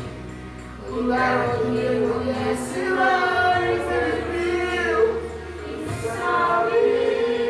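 A vocal group singing a gospel song over low instrumental backing, coming in strongly about a second in after a softer moment.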